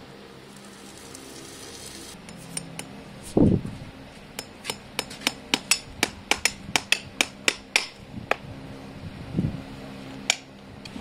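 Farrier's hammer tapping nails through a steel horseshoe into a horse's hoof: a quick run of sharp metallic taps, about four a second, lasting some four seconds. A dull thump comes just before the taps and another near the end.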